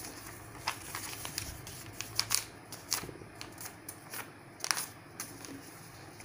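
A sheet of printer paper rustling and crinkling as it is handled and folded into a paper airplane: a run of sharp, irregular crackles, loudest around two to three seconds in and again near five seconds.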